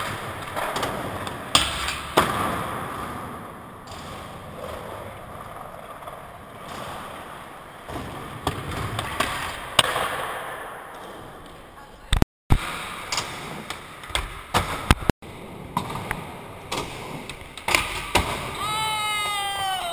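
Skateboard wheels rolling on a smooth skatepark floor and ramps, broken by sharp clacks of the board popping and landing. Several abrupt cuts. Near the end comes a high tone that slides down in pitch.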